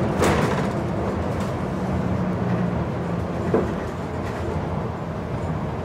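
Tram running, heard from inside the passenger car: a steady low rumble and hum, with a couple of short clunks just after the start and about three and a half seconds in.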